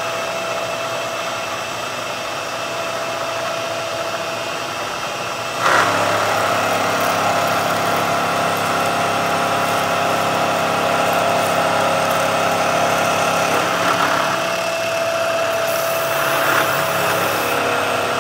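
CNC milling machine cutting metal at 2,000 RPM, its spindle motor running at about full load: a steady machining whine and hiss that steps up louder about six seconds in. The cut runs smooth, and the operator is pleased with how it sounds.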